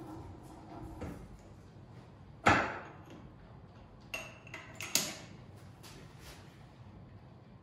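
Knocks and metal clanks from a hydraulic bottle-jack wood-bending press being let down and its steel bending strap handled: one sharp, loud knock with a short ring about two and a half seconds in, then a ringing metallic clink and a clank around four to five seconds in.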